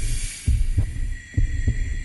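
Low heartbeat-like double thumps, about one pair a second, from an interactive storybook app's suspense soundtrack. A brief hiss comes at the start, and a thin steady high tone joins about a second in.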